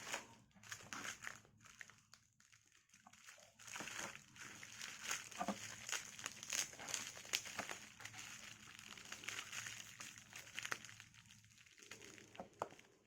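Packaging crinkling and rustling as products are handled and lifted out of a just-opened delivery box, with scattered light clicks and taps.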